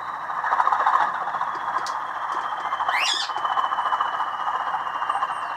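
A sound-fitted Bachmann Class 20 model locomotive's small speaker playing its diesel engine shutdown sound. The sound is thin and lacks bass, with a faint whine falling slowly in pitch as the engine winds down.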